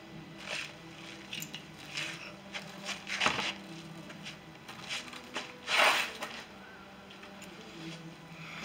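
Workshop handling noises: scattered clicks, knocks and rustles of tools and parts being moved, with two louder brief rushing sounds about three and six seconds in, over a faint steady hum.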